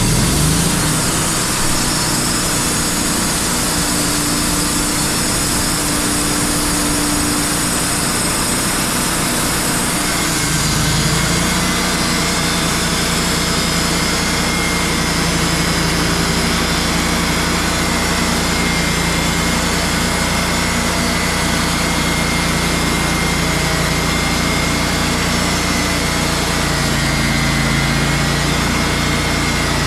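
Wood-Mizer band sawmill running steadily, its engine note shifting about ten seconds in.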